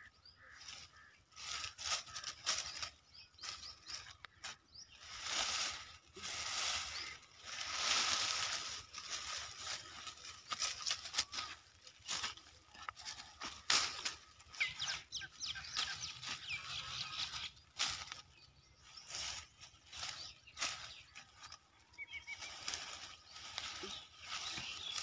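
Leafy branches and dry twigs rustling in irregular bursts as a bundle is gathered up and dragged over dry stubble.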